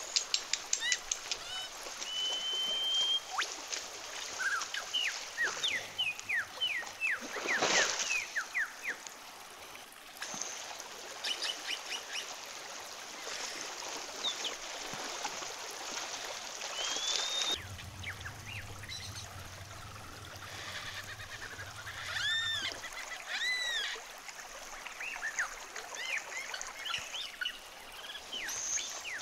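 Splashing footsteps of a person and a dog wading through a shallow, flowing river, over the running water. Birds chirp on and off throughout, with a few louder arching calls about three-quarters of the way through.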